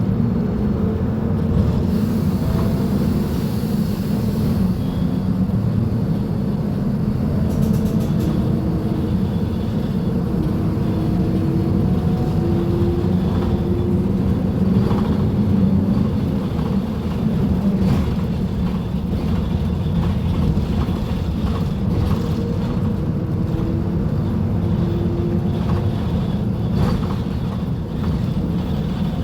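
Mercedes-Benz OF-1724L bus chassis' four-cylinder Bluetec 5 diesel engine running steadily, with a faint whine that rises in pitch a few times.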